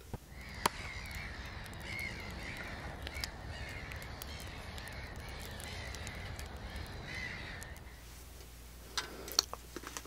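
Crow-like cawing over a steady outdoor ambience, with a few sharp clicks; it cuts off about two seconds before the end, followed by a few light clicks.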